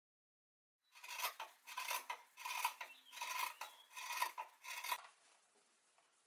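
Large fabric scissors cutting through denim, about eight crisp snips in a steady run that stops about five seconds in.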